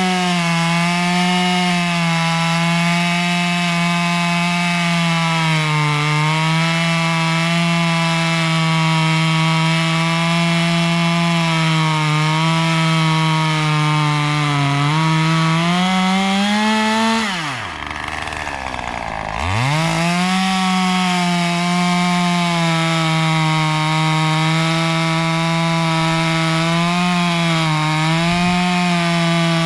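Husqvarna 540 XP Mark III two-stroke chainsaw running near full throttle while cutting through firewood logs, its pitch dipping a little under load. About 17 seconds in the engine note drops sharply for about two seconds as the throttle is let off, then rises back to full revs for the next cut.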